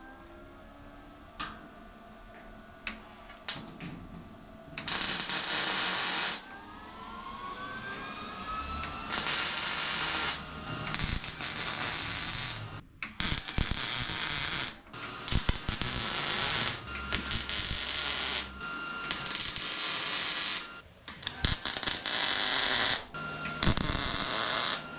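Millermatic 211 MIG welder laying short stitch welds across a sheet-metal roof-skin joint: the arc crackles in about nine bursts of one to two seconds each with brief pauses between, starting about five seconds in after a few faint clicks.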